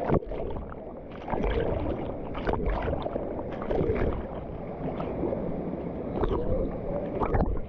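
Water splashing and sloshing close to the microphone in irregular strokes, as a swimmer paddles across the pool.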